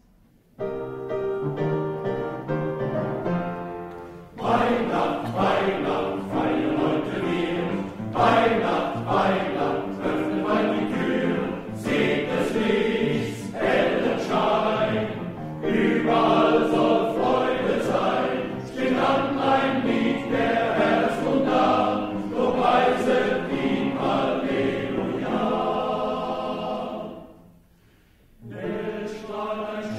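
Men's choir singing with piano accompaniment, softer at first and swelling louder about four seconds in. A brief pause near the end before the singing resumes.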